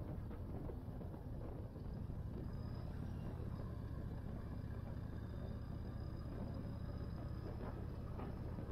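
Yamaha Raider's air-cooled V-twin running steadily at cruising speed, a low even drone under road and wind noise from the moving motorcycle.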